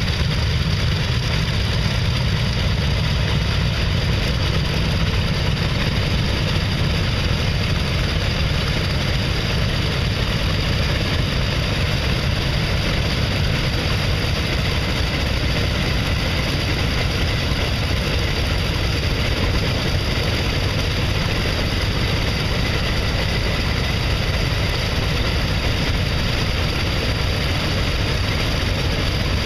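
Grumman F7F Tigercat's two Pratt & Whitney R-2800 radial engines idling steadily, propellers turning, heard close up in front of the aircraft.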